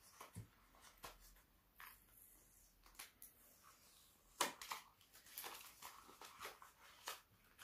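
Faint rustling and crinkling of paper and plastic wrapping as a small gift is unwrapped by hand, with a sharper crackle about four and a half seconds in and a run of crackles after it.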